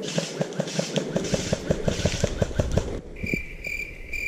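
Quick footsteps and rustling through forest-floor moss and undergrowth close by, with heavier thumps near the end, stopping after about three seconds. Then a steady high chirp repeats about twice a second.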